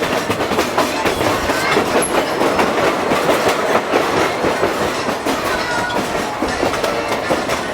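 Narrow-gauge passenger train rolling along the track, heard from aboard a car: a steady rumble with the wheels clattering over the rail joints.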